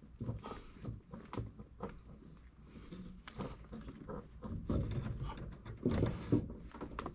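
Copper pipe and fittings being handled and pushed together: scattered light clicks, taps and rubbing, with a denser stretch of knocks near the end.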